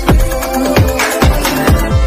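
Electronic background music with a heavy, steady kick-drum beat, a little over two beats a second, over held synthesizer tones.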